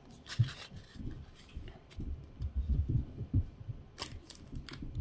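Quiet handling of trading cards and foil packs on a table: soft low thumps and light rustles as a stack of cards is squared up and set down. A sharper crinkle comes about four seconds in as a hand reaches to the wrapped packs.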